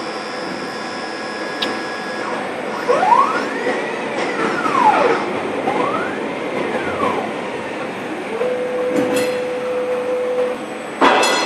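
CNC machine's drive motors whining during a slow automatic tool change: two smooth whines that rise and then fall in pitch, each about two seconds long, over steady machine noise. A steady hum follows for about two seconds, and a short clatter comes near the end.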